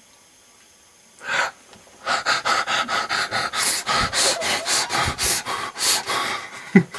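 A person panting hard and fast, about four noisy breaths a second, after a single breath about a second in; a short voiced squeak closes it near the end.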